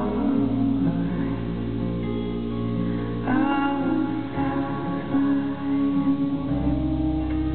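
Live band playing an instrumental passage of a slow song: an acoustic guitar and a resonator-style guitar ring out sustained chords and melody notes over a steady low bass.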